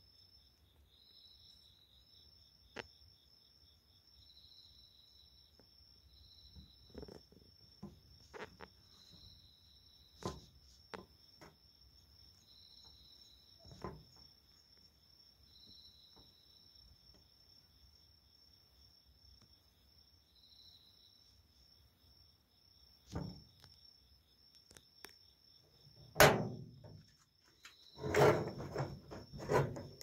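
Autumn night insects calling: a steady high trill with a shorter chirping phrase repeating every second or two. Scattered light knocks run through it, and near the end come loud knocks and rustling from handling close to the microphone.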